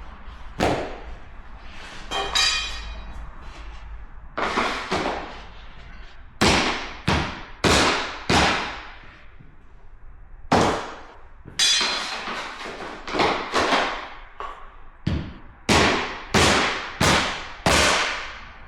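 Mallet striking a tapping block to knock click-lock vinyl flooring planks together: a long series of sharp knocks, irregularly spaced and often in quick pairs or runs of three.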